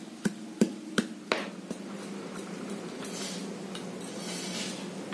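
A quick series of sharp taps, about three a second, fading out by about two seconds in, then a soft rustling hiss over a steady low background hum.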